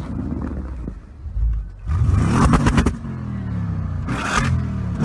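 Audi RS7 Performance's twin-turbo V8 running low, then revving hard about two seconds in with a rapid run of crackles, and running on at steadier revs with another short loud burst near the end.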